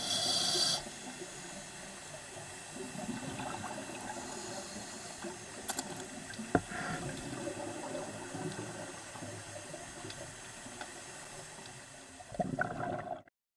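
Underwater water noise picked up by a scuba diver's camera, with bubbling and gurgling, a short hissing burst at the start and a few sharp knocks in the middle. It cuts off suddenly near the end.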